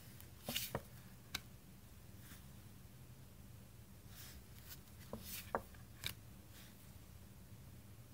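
Tarot cards being handled: faint papery slides and light taps as a card is drawn off the front of the deck and moved aside, once just after the start and again in a cluster around the middle, over a low steady hum.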